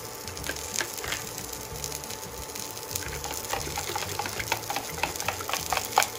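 Cabbage, bacon and sausage frying in a pan on an induction cooktop: a steady sizzle over a faint steady whine, with sharp crackles and clicks coming more and more often from about halfway through.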